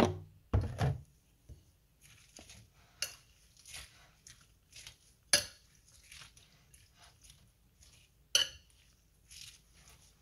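Metal fork clinking and scraping against a glass bowl as shredded cabbage and carrots soaked in vinegar are tossed, with irregular sharp clinks. A couple of heavier knocks come in the first second.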